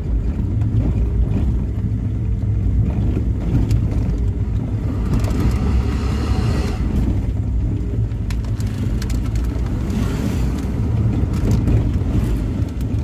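Car engine running steadily under load with road rumble, heard from inside the cabin as the car drives up a steep, rough hill road. A brief higher, rougher sound rises over it about five to seven seconds in.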